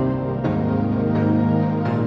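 Electronic music track: sustained chords, changing about every second.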